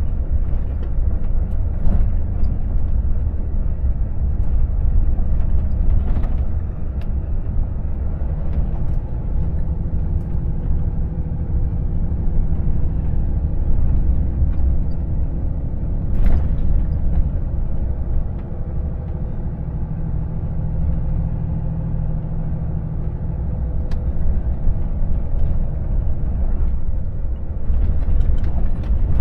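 Volvo FH 460 truck's 13-litre six-cylinder diesel running at low road speed, heard inside the cab over a steady low rumble of tyres and road, with a few brief knocks.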